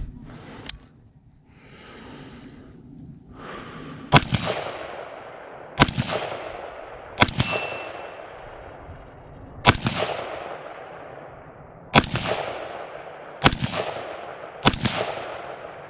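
Seven rifle shots at an irregular pace, one to two and a half seconds apart, beginning about four seconds in. Each sharp crack is followed by a long echo that dies away.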